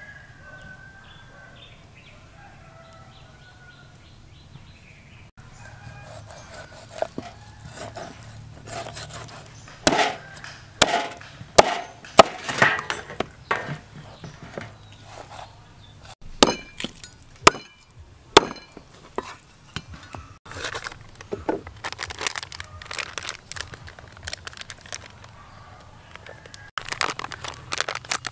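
Raw pork ribs being chopped on a wooden chopping board: irregular sharp knocks and cracks, loudest and heaviest in the middle, with lighter quicker taps later. Faint bird chirps before the chopping begins.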